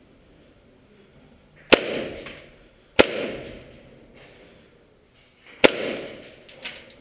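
Three sharp bangs, each trailing off in about a second of echo off bare concrete walls.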